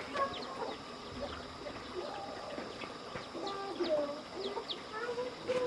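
Chickens clucking in short, scattered calls, with a few quick high chirps in between.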